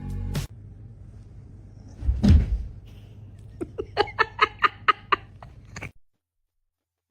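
A heavy thud about two seconds in, then a quick run of about ten short pitched vocal sounds, roughly four a second, that cut off abruptly.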